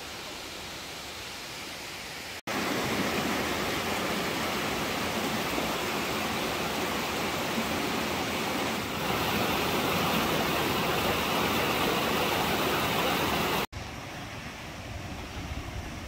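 Dudhsagar Falls' water pouring down: a steady rushing noise. It cuts out for an instant about two and a half seconds in and comes back louder, then cuts out again near the end and comes back quieter.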